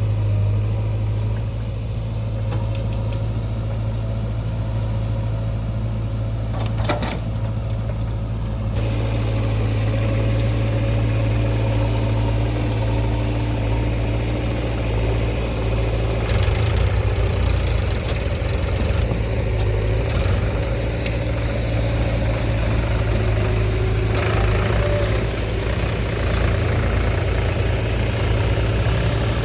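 Heavy diesel earthmoving machinery running steadily with a strong low hum. The sound changes abruptly about 9 and 16 seconds in.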